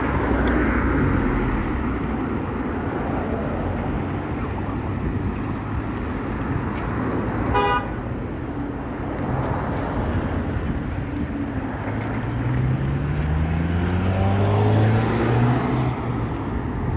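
Road traffic and car engine noise, with one short car-horn toot about eight seconds in. Near the end an engine speeds up, its pitch rising as a car accelerates.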